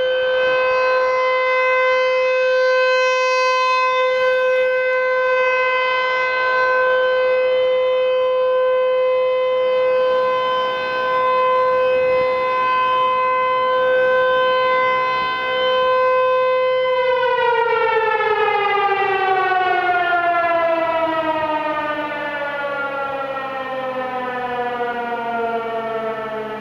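ACA T-128 outdoor tornado warning siren sounding its weekly test: one steady, high tone held for a long time, then, about seventeen seconds in, the pitch falls steadily as the siren winds down.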